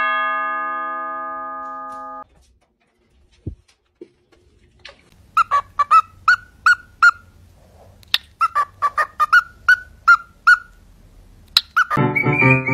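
A two-tone doorbell chime rings out and is cut off about two seconds in. A few seconds later a cockatiel gives a long run of short, repeated chirps, two or three a second, with sharp clicks among them. Piano music starts near the end.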